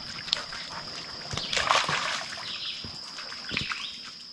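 Shallow creek water trickling over a flat rock bed, with a few bird chirps near the end and a steady high-pitched whine behind it.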